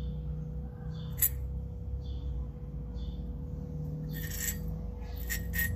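Glass bulb of a mercury vapour lamp being handled: a sharp clink about a second in and brief scraping rustles near the end. Under it are short high chirps repeating about once a second and a faint steady hum.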